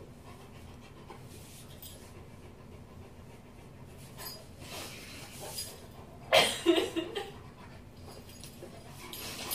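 Quiet breathing and snuffling, with one short whimpering cry about six seconds in that starts sharply and falls in pitch.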